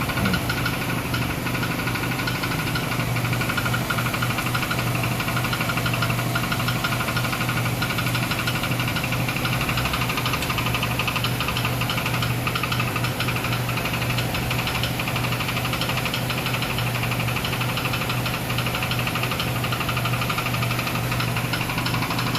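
A 2006 Chrysler Sebring's engine running steadily with a continuous rapid knocking from under the hood, already fairly serious: the sign of a cracked flexplate.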